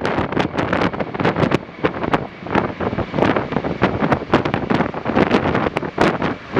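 Strong gusty wind buffeting the microphone in loud, irregular rushes.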